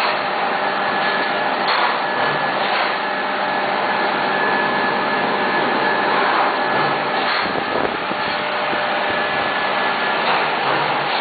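UV curing conveyor machine running: a steady blower-like noise with a few faint steady whining tones and occasional light knocks.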